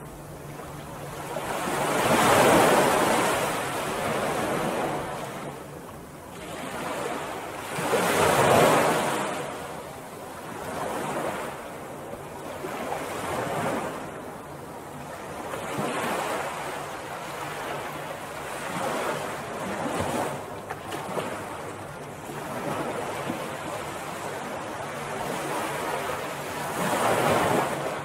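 Ocean waves breaking and washing up a beach, the surf rising and falling in swells every few seconds, the biggest about two seconds in, around eight seconds in and near the end.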